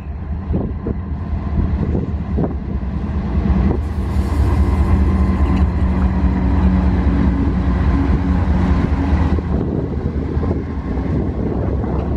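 Canadian Pacific GE AC4400CW diesel locomotive passing close by on an intermodal freight train: its V16 diesel engine gives a steady low drone over the wheel and rail noise. The drone is loudest from about four to nine seconds in.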